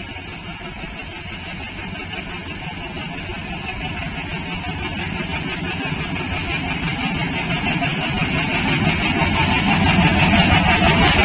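Diesel locomotive engine running as the train approaches, its steady low throb and hiss growing louder throughout.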